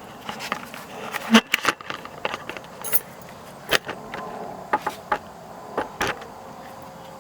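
Irregular sharp plastic clicks and rattles from the turn-signal switch and its retaining clips on a Pontiac G6 steering column as the clips are pressed and the switch is worked loose, the loudest snap about a second and a half in.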